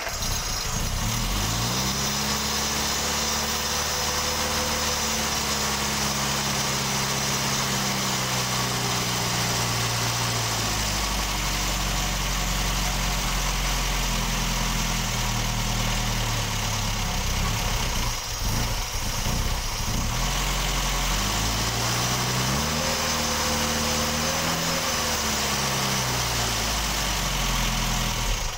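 Morris Mini's BMC A-series four-cylinder engine running on a test after a new oil-filled ignition coil is fitted: it runs at a fast idle, settles to a lower speed about ten seconds in, rises and falls in revs about three quarters of the way through, then cuts off suddenly. It runs okay on the new coil.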